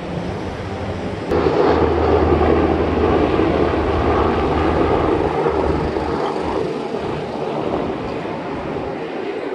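Engine noise with a steady low hum that comes in suddenly about a second in, stays loud for a few seconds, then slowly fades.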